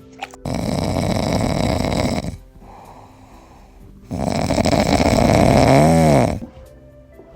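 Dog snoring: two long, loud snores of about two seconds each, with a quieter breath between them.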